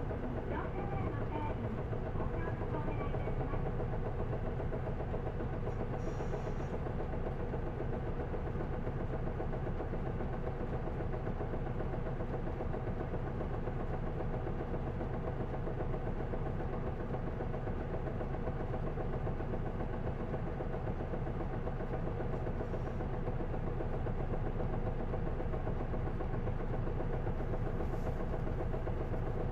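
Isuzu Erga city bus (PDG-LV234L2) heard from inside the cabin, its 6HK1 inline-six diesel running at a steady pitch with a low drone.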